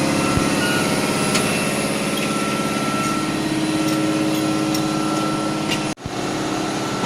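Steady hum of heat-treatment line machinery, with several held tones over a noisy haze and a few faint clicks. The sound drops out abruptly for a moment about six seconds in.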